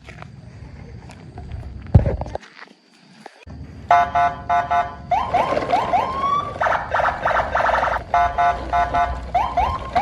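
Electronic car-alarm-style siren sound cycling through its patterns: rapid pulsing beeps, then a run of short rising whoops, then pulsing beeps again, starting about four seconds in. A sharp knock comes about two seconds in.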